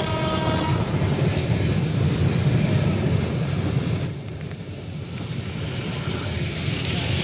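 A loaded babaranjang coal train's wagons rolling past, with a steady low rumble of wheels on the rails. A faint ringing tone sounds in the first half second, and the rumble drops in loudness about four seconds in.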